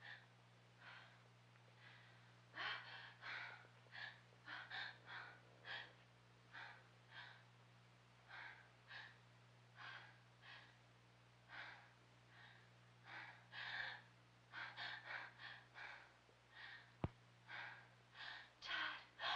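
Faint, quick breathing and gasps from a person, short breaths coming one or two a second and crowding closer together near the end, over a steady low hum. A single sharp click sounds near the end.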